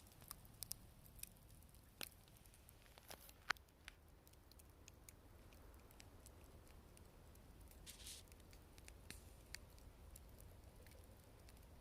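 Wood campfire crackling softly with scattered sharp pops, the loudest about three and a half seconds in, and a short hiss near the eight-second mark.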